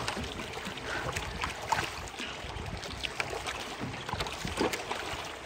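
Water washing and slapping against the hull of a small wooden boat under way, a steady rush with scattered small splashes and taps, with some wind on the microphone.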